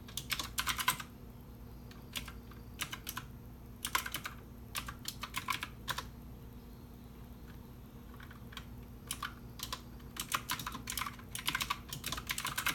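Typing on a computer keyboard: keys clicking in quick bursts separated by short pauses, over a faint steady hum.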